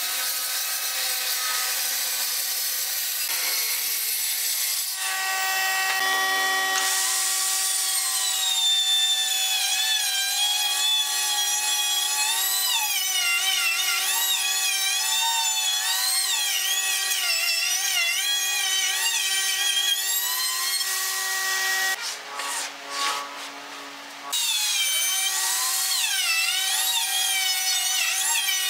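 A corded circular saw cutting through a pine panel, then a plunge router running and cutting along the panel's edge. Its motor gives a steady whine, with the pitch wavering as the bit takes the wood, and the sound dips briefly for about two seconds near the end before resuming.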